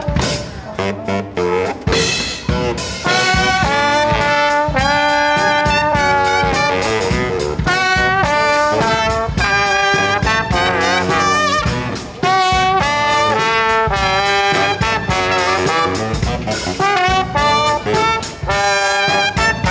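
Street brass band playing loud, upbeat jazz: trombone, trumpet and saxophone play held and repeated notes together over a regular drum beat.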